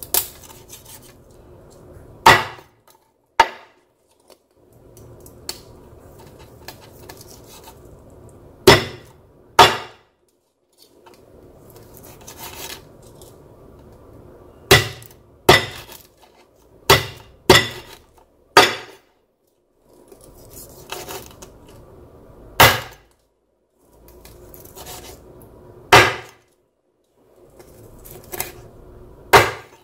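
Chef's knife slicing through crackled-skin pork belly and knocking down onto a wooden cutting board. Each cut ends in a sharp knock, about fourteen of them at uneven intervals, with short bursts of several close together.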